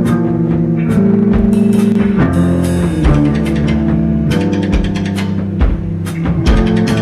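Post-rock band playing live: sustained electric guitar and bass chords with drum kit hits and crashing cymbals, the cymbals densest about two to three seconds in.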